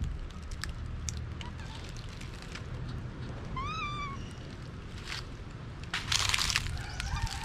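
Dry fallen leaves rustling and crunching in two short bursts, about six seconds in and again at the end. Midway comes a single short animal call that rises and then falls in pitch.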